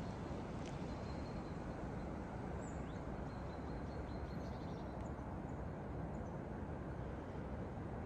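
Steady low outdoor background rumble with no distinct source, and a few faint high bird chirps in the first half.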